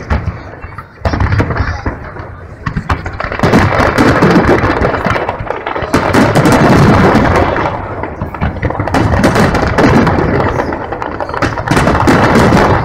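Aerial fireworks shells bursting in a rapid, nearly continuous barrage of bangs and crackles, growing denser and louder a few seconds in.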